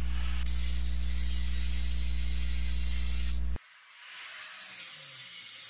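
Electric angle grinder running on a concrete-block wall: a loud, steady hum with a high hiss that cuts off abruptly about three and a half seconds in. It is followed by a quieter, rough scraping hiss.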